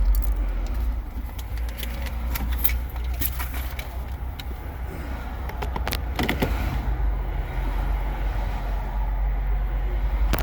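Car running, heard from inside the cabin as a steady low rumble with a few sharp clicks and rattles; a low engine hum comes in about two-thirds of the way through.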